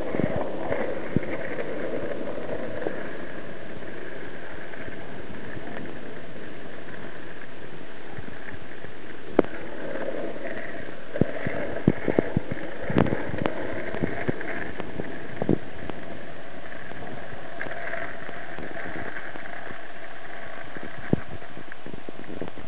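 Longboard wheels rolling steadily on asphalt, a continuous roll broken by scattered sharp clicks and knocks.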